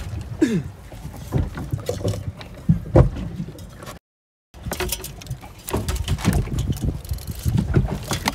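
Water sloshing and splashing with irregular knocks. The sound cuts out completely for about half a second, about four seconds in.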